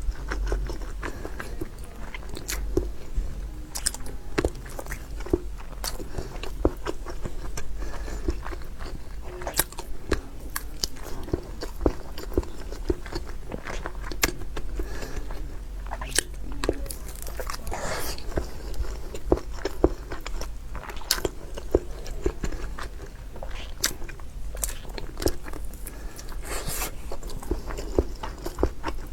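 A person chewing and biting meat, with irregular, frequent clicks and smacks, over a steady low hum.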